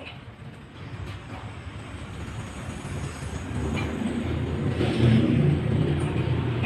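Low rumble of a passing motor vehicle, growing louder and loudest about five seconds in.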